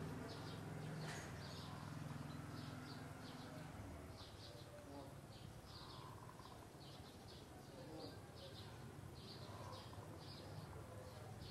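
Faint outdoor ambience of short high chirps repeating evenly, about two to three a second, from an unseen small creature, over a low hum that fades out after the first few seconds.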